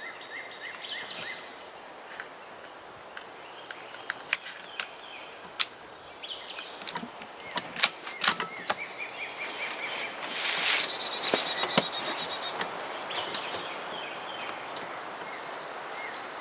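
Outdoor ambience with birds chirping in short repeated notes, a louder rapid high trill from about ten to twelve and a half seconds in, and scattered sharp clicks.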